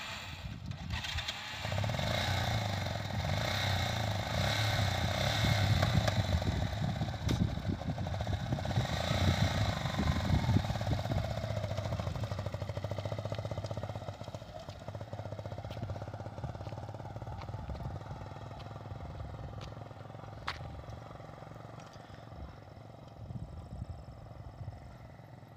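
Motorcycle engine running as the bike pulls away over gravel, then fading steadily as it rides off into the distance.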